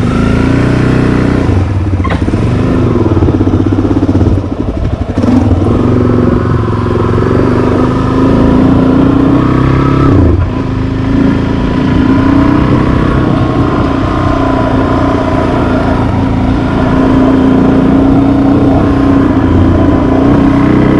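Suzuki motorcycle engine pulling away and accelerating. The revs climb and drop with upshifts about three times in the first ten seconds, then the engine runs steadily at road speed.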